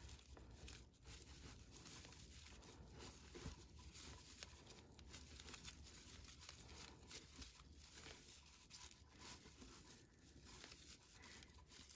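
Faint crinkling rustle of raffia yarn being pulled through the stitches by a crochet hook, in a run of single crochet stitches.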